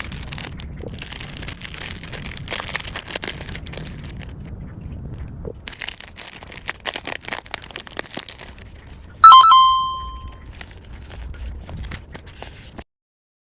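Sticker sheets and packaging being handled: crinkling and rustling with many small clicks and taps. About nine seconds in, a bright bell-like chime rings out, the loudest sound, and fades over about a second.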